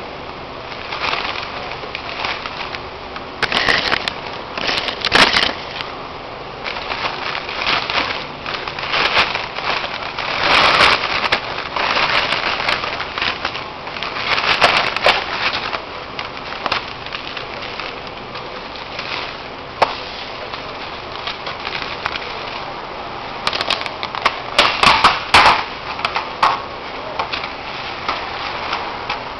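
White paper bag and aluminium foil crinkling and rustling close up as wrapped food is opened and unwrapped, in irregular bursts with sharp crackles.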